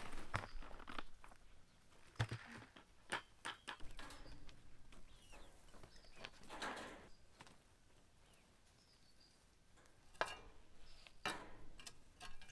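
Quiet outdoor work sounds: scattered knocks and clicks of a plastic bucket and a roll of wire mesh being handled, with a longer rustle about halfway through as the mesh roll is pushed along the ground. Faint bird chirps come and go.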